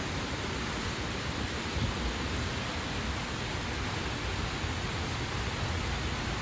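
Steady rushing noise of strong storm wind and rain, with the wind rumbling on the microphone.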